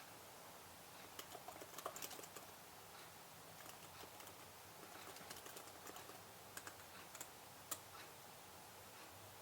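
Typing on a computer keyboard: irregular runs of soft key clicks, busiest about two seconds in, with one sharper keystroke near the end.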